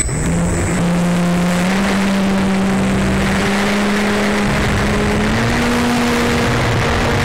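Electric motor and propeller of a small RC biplane at high throttle, heard from a camera mounted just behind the prop during a hand launch and climb-out: a loud steady motor buzz over rushing prop wash and wind. The pitch steps up slightly about two seconds in and again about five seconds in.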